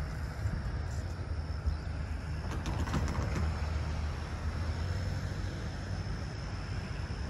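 Steady low outdoor rumble with a faint, steady high-pitched tone above it, and a few light clicks about three seconds in.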